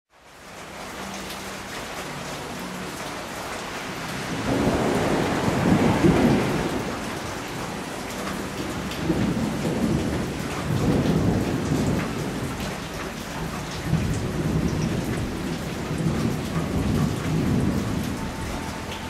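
Heavy rain falling steadily, fading in at the start, with thunder rumbling from about four seconds in. The thunder is loudest around six seconds and swells up again several times after that.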